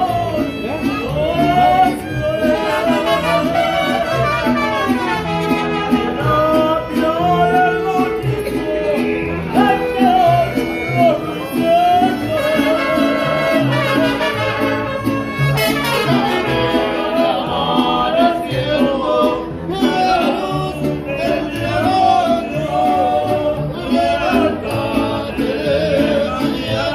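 Latin music with a male-sounding sung melody, brass and a steady bass rhythm, playing loud and continuously.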